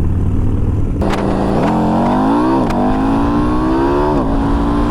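Motorcycle engine accelerating hard, its pitch climbing and then dropping sharply twice at upshifts, with wind rumble on the microphone at the start.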